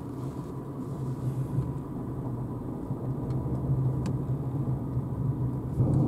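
Low, steady rumble inside the cabin of a Renault Zoé electric car rolling off at low speed: tyre and running noise with no engine note, growing slightly louder.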